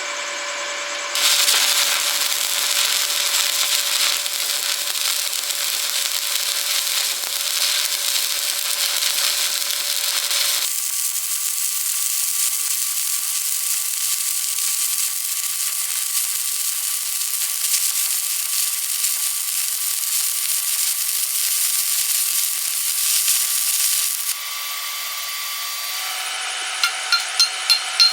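Stick-welding arc crackling and hissing steadily as a fillet weld is run. It starts about a second in and stops a few seconds before the end, where it gives way to a steady hum and then fast, regular tapping.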